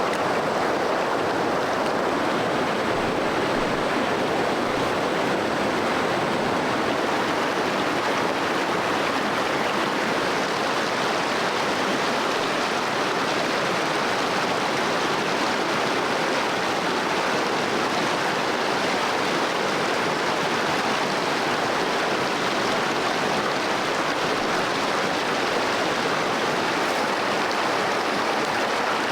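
Flowing stream: a steady, unbroken rush of water.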